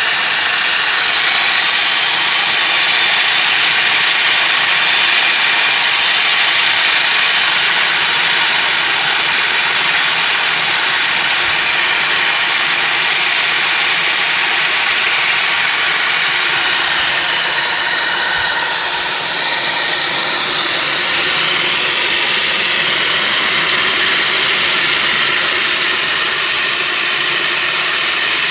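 A Roundhouse Bertie 16mm-scale live steam locomotive running: a steady hiss of steam over a fast, even clatter from its exhaust and motion.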